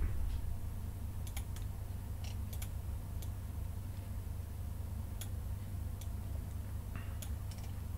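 Scattered computer mouse and keyboard clicks, about eight sharp ones spread out, over a steady low hum.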